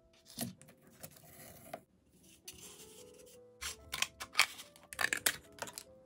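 Scissors cutting a curled strip of gray cardboard in a run of short rasping snips and rubs, the loudest in the second half, over background music.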